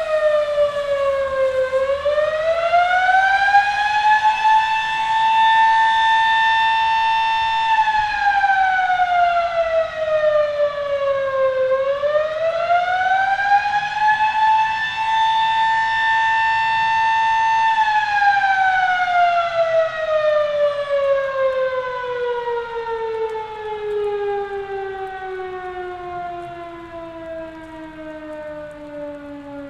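Sterling M-5 electromechanical outdoor warning siren sounding the Attack signal: its wail rises, holds, falls and rises again in slow cycles about ten seconds long. For the last third it winds down in one long falling pitch.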